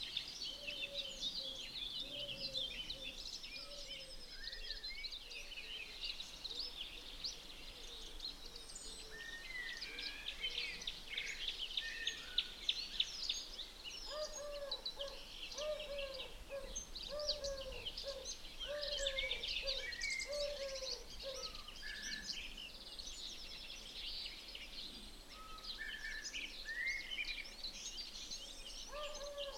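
Several wild birds singing and calling together: high chirps and rapid trills, over a faint steady background hiss. A lower call, repeated about twice a second, joins in around the middle.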